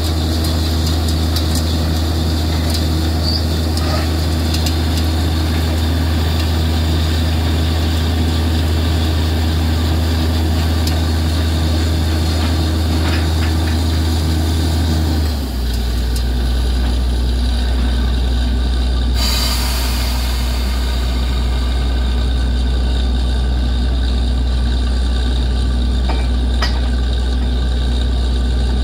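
Engine of a truck-mounted borewell drilling rig running steadily under load while the bore is flushed, water and cuttings gushing out. About halfway through the engine note drops to a lower steady pitch, and a few seconds later there is a brief hiss.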